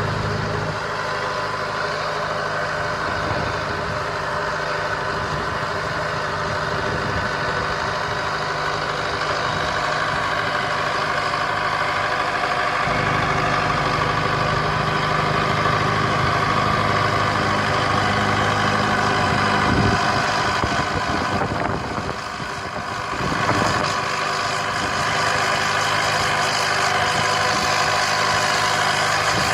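Ford 276 tractor's diesel engine running steadily, growing a little louder partway through, with a brief drop in level about three-quarters of the way through before it picks back up.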